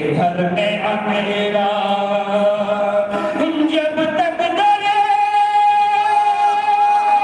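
A man reciting Urdu devotional poetry in a sung, chant-like style over a microphone, his pitch moving for the first few seconds and then settling into a long steady held note from about halfway through.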